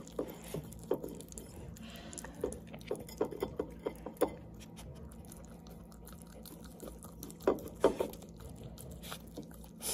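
A small dog licking a plate clean, its tongue lapping with wet lip-smacking sounds in irregular bursts. The smacks come thickly for the first few seconds, ease off in the middle, then return with a couple of louder smacks near the end.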